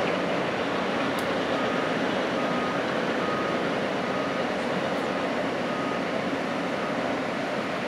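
Steady noise of construction-site machinery, with a faint short beep repeating about once or twice a second, like a site warning beeper.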